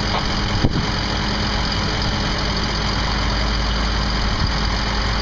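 Fire engine's motor running steadily with a low hum, as it supplies the hose line. A single sharp knock comes a little under a second in.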